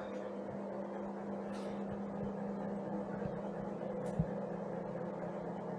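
Steady low electrical hum of room tone, with a faint click about four seconds in.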